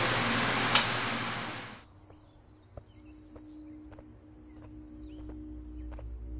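Steady room hiss with a single sharp mouse click about a second in. The hiss cuts off abruptly just before two seconds, giving way to quiet outdoor ambience with faint, scattered bird chirps.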